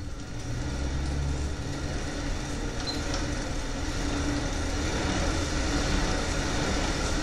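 Air bike's fan wheel whirring as it is pedalled, rising over the first two seconds or so as it spins up, then holding a steady whoosh at an easy pace of about 40 to 45 RPM.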